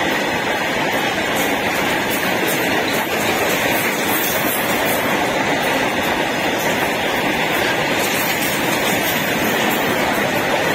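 Steady loud rumble and clatter of a freight train's covered goods wagons rolling past on the near track, steel wheels on rail, with sharp clicks now and then.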